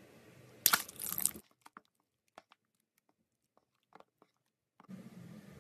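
Scissors cutting into a rubber stress ball: a short, crunchy snipping burst about a second in. Then near silence with a few faint small clicks, and faint room noise comes back near the end.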